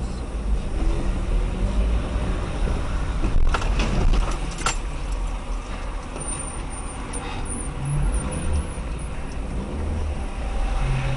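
Steady low rumble of engine and road noise inside a car in city traffic, picked up by a dashcam, with a few sharp clicks or knocks between three and a half and five seconds in.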